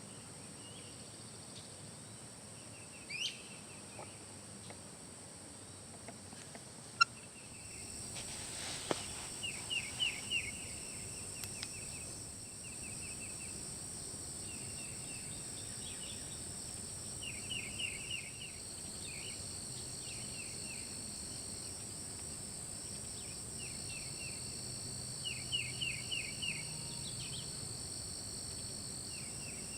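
Spring woodland ambience: a steady high-pitched drone of insects, with a songbird calling several times in quick runs of short notes. A single sharp click about seven seconds in is the loudest moment.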